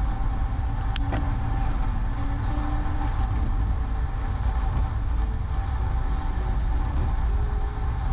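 Steady low wind noise on the microphone of a camera on a moving bicycle, with tyre noise on the concrete path and a sharp click about a second in.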